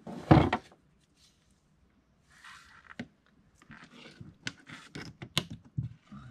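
Handling noises on a small boat's deck: a short loud knock at the start, then after a pause a run of scattered scrapes, clicks and rustles as a speared sheepshead is handled and laid out.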